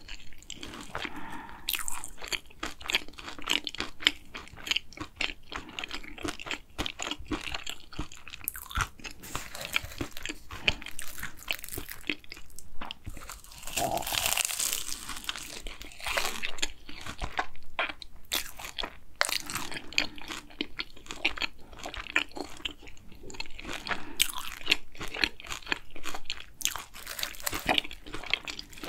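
Close-up chewing of a hazelnut Nutella cronut, its flaky laminated pastry giving many small crackles throughout. A bigger bite into the cronut about halfway through gives a louder crunch.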